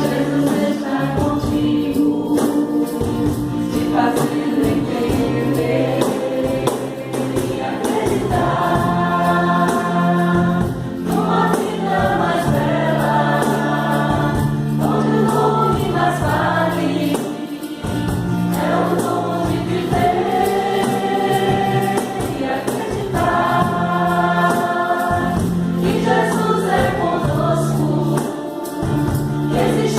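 A small group of men and women singing a devotional song together, accompanied by acoustic guitar, bass guitar and hand percussion keeping a steady beat.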